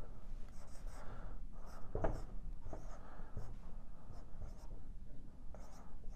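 Dry-erase marker writing on a whiteboard: a run of short, irregular strokes with high squeaks as numbers are drawn.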